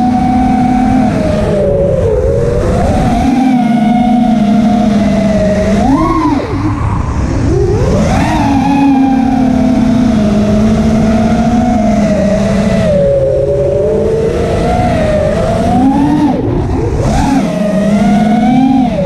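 Brushless motors of a 5-inch FPV quadcopter (T-Motor F40 Pro II 2600kv) whining in flight, the pitch rising and falling with the throttle, with quick punches upward about six and eight seconds in and again near the end. A low rush of air runs under the whine.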